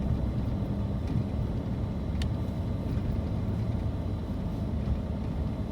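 Steady low rumble of a car running, heard from inside the cabin, with one short click a couple of seconds in.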